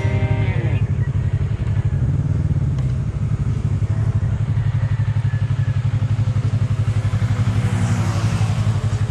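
Motorcycle engine running steadily at low revs, a fast even pulsing. Near the end another motorcycle passes close by, its sound swelling and fading.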